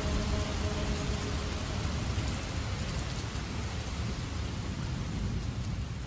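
Steady rain with a low rumble beneath it, like distant thunder, beginning to fade out near the end. In the first second the last held note of the muezzin's voice dies away under the rain.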